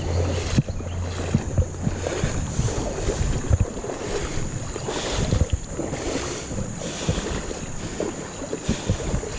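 Shallow creek water running, with irregular splashes and knocks throughout, and a steady high-pitched hum above it.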